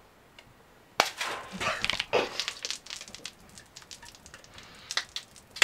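A beer can being shotgunned: a sharp pop as it is opened about a second in, then beer gushing out and being gulped down fast, splashing.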